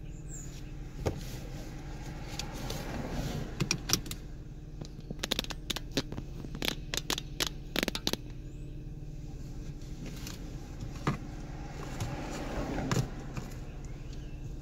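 Steady rumble of a car driving. A run of sharp clicks and rattling knocks comes in the middle, and a few single knocks come later.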